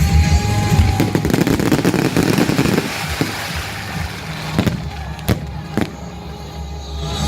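Fireworks going off: a dense crackling for about the first three seconds, then three separate sharp bangs, over a steady low hum.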